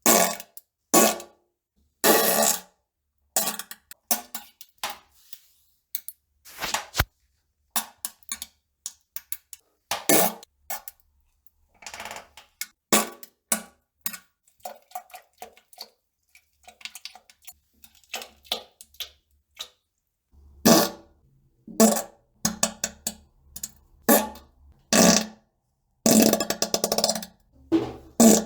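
A rapid, irregular series of fart sounds: many short blasts and pops, several drawn out to about a second. They thin out and grow fainter through the middle and come thick again near the end.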